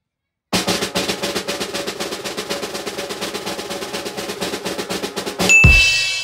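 Snare drum roll starting about half a second in and running for about five seconds, ending in one loud hit with a cymbal ringing out. This is a title-card sting.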